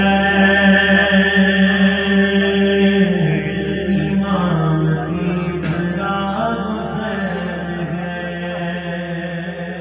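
A man's voice chanting a slow Muharram lament in long held notes, amplified through a microphone. It gradually trails off toward the end.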